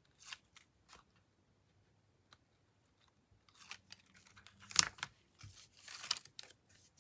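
Paper and tape handling: protective backing peeled off adhesive and a paper piece rustled and pressed onto card stock, with scattered faint rustles and a sharp crackle about five seconds in.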